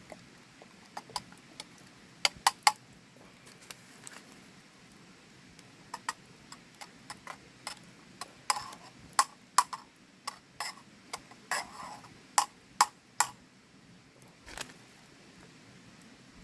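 Irregular sharp clicks and knocks of small hard objects, coming thick and fast in the middle and thinning out near the end.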